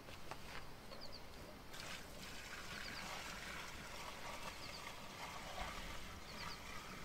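Water poured steadily from a plastic bucket into a plastic drum of chopped plants and cow dung, starting about two seconds in: adding the water when making liquid manure. A bird chirps briefly a few times.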